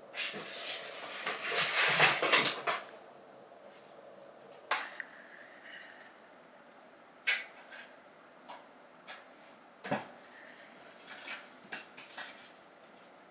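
Cats playing in a cardboard box: a few seconds of loud scraping and rustling of cardboard, then several separate sharp knocks and taps as paws strike the box.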